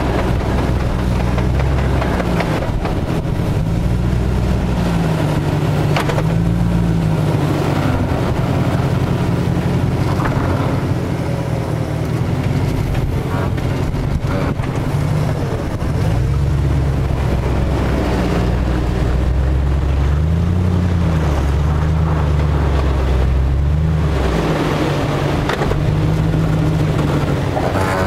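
Jeep Grand Cherokee WJ engine working under load while crawling up a rock ledge in four-wheel drive, its revs rising and falling over and over, with occasional short clicks and knocks.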